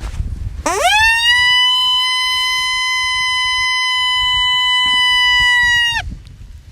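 A single long coyote howl from a predator call opens the calling set. It sweeps up quickly from low to high less than a second in, holds one steady pitch for about five seconds, and cuts off with a slight drop near the end.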